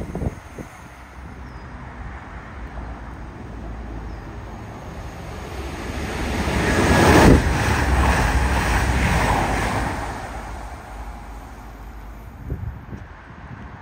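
A train passing on the Midland Main Line: its rumble and rail noise build over a couple of seconds, peak about seven seconds in, then fade away over the next few seconds.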